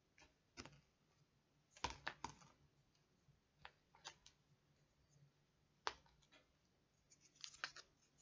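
Faint, irregular clicks and taps of things being handled close to the microphone, about a dozen scattered through, with near silence between them.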